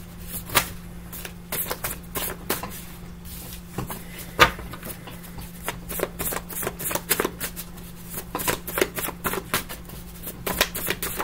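A small dog gnawing on a chew bone: irregular clicks and crunches of teeth on the bone, one louder crack about four seconds in, over a steady low hum.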